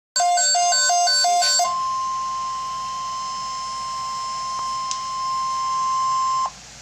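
Emergency alert tones: a quick run of beeps alternating between two pitches for about a second and a half, then one steady high tone held for about five seconds that cuts off sharply. The steady tone is the NOAA Weather Radio 1050 Hz warning alarm tone, which signals that a weather alert message, here a severe thunderstorm watch, is about to be read.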